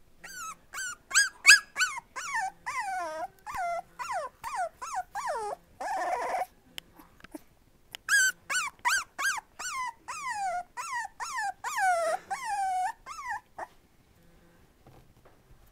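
Four-and-a-half-week-old puppy whining and crying in a run of short cries, each falling in pitch, about two or three a second. One rougher, noisier cry comes around six seconds in, then a short pause before the cries start again. They stop about a second and a half before the end.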